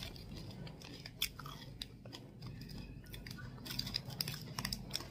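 A person chewing crunchy food, with scattered soft crunches and clicks.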